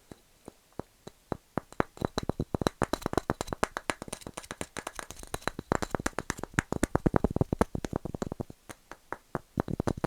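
Rapid, uneven tapping on wood, a few separate taps at first and then a fast, dense run of many taps a second.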